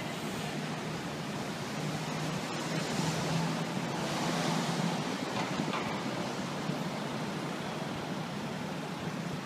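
Steady city street traffic noise, an even rushing hiss with a low hum that swells about two to five seconds in, as a vehicle passes or idles close by.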